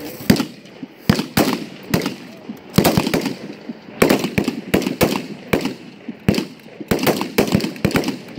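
Rifles firing single shots: a string of sharp reports, about two a second at uneven spacing and sometimes overlapping, as shooters engage their targets.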